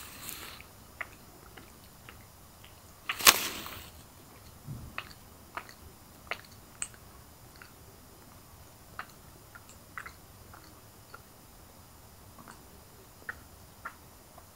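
Cat teaser wand with feathers and a pompom being flicked over carpet: scattered light taps and ticks, with one louder rustling swish about three seconds in.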